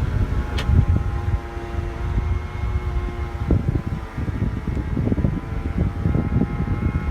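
Whining noise from a B8-generation Audi A4: several steady high tones held over a low rumble.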